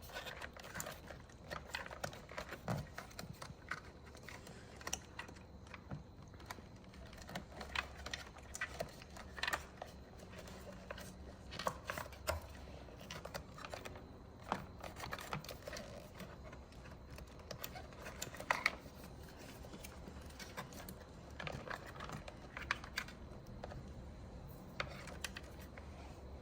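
Irregular small clicks and rattles of plastic wire connectors and a wiring harness being handled and pushed into a plastic headlight pod, with no steady rhythm.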